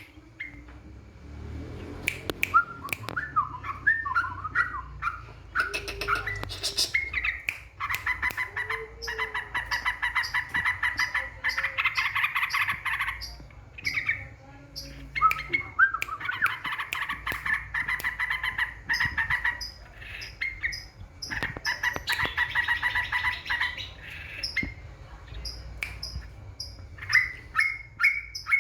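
Yellow-vented bulbul (trucukan) calling: bubbly warbled phrases broken by fast chattering runs of repeated notes, each run lasting a couple of seconds.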